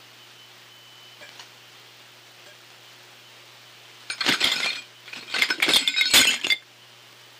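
Metal action of a single-action .45-70 Government being worked, with its ultrasonic components mixed down into the audible range: two bursts of dense metallic clicking and rattling, a short one about four seconds in and a longer one about a second later.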